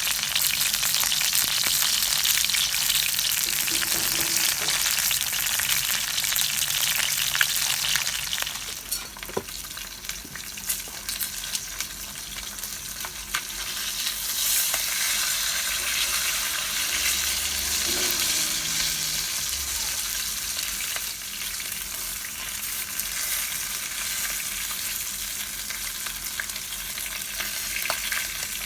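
Spicy chicken sizzling as it cooks over a campfire, a dense hiss with scattered crackles. It is loudest over the first several seconds, eases off near the middle and then picks up again.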